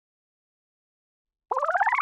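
Silence, then about one and a half seconds in, a short cartoon sound effect: a fast-warbling tone that glides steadily upward.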